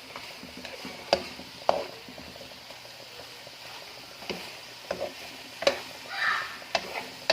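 A pan of eggplant, meat and tomato sizzling steadily while it is stirred, a utensil knocking sharply against the pan about seven times and scraping once near the end.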